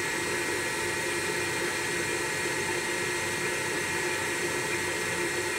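Three-phase spindle motor on a Hitachi WJ200 variable-frequency drive running steadily at 30 Hz, turning the belt-driven mill spindle at roughly 1,500–1,600 RPM. It makes an even hum and whine over a rush of air from the motor's fan, with no change in speed.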